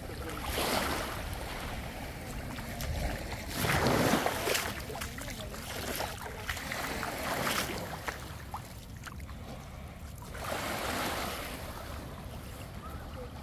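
Sea water washing in about four surges, a few seconds apart, the loudest about four seconds in, over a steady low rumble of wind on the microphone.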